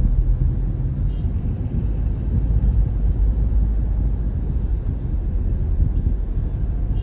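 Steady low rumble of a car on the move, engine and road noise, heard from inside the cabin.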